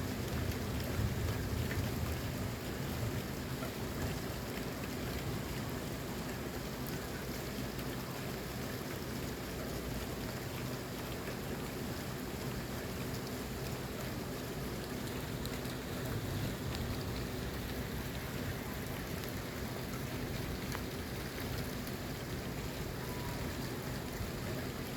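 Steady rain falling during a thunderstorm, an even hiss of drops, with a low rumble of thunder fading out in the first couple of seconds.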